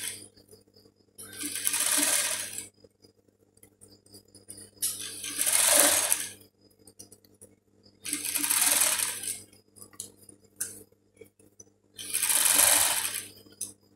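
Sewing machine stitching in short runs of about a second and a half, four times, stopping between runs while the fabric is repositioned. A faint steady low hum continues under the gaps.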